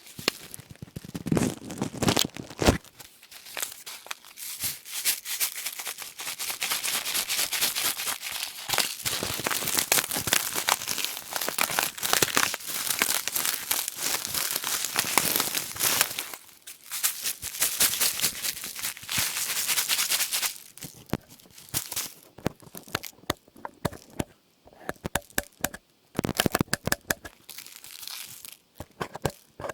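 Close-up crinkling and crumpling of a thin, crackly material: a dense crackle of small clicks that thins out to scattered sharper crackles in the last several seconds.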